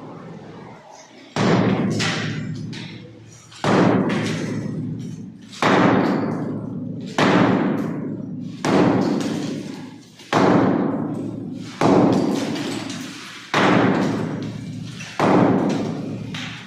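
Heavy hammer blows on a masonry wall as a window opening is broken out, about nine strikes a second and a half to two seconds apart. Each strike rings out and echoes for more than a second.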